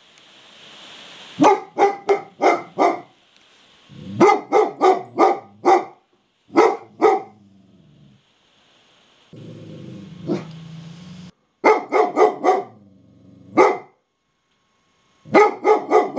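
Large dog barking at a pigeon in quick volleys of three to six sharp barks, with pauses between volleys. A low steady growl comes through a little past the middle.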